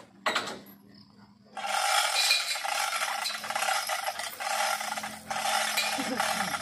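A single knock, then from about a second and a half in a loud, harsh, continuous grinding noise from an abrasive tool at work in the truck-bed repair, with a brief break about five seconds in.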